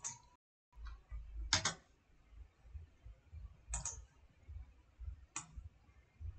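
Computer mouse clicking a few times, about two seconds apart, with one quick double click, over a faint low hum. The sound cuts out completely for a moment just after the first click.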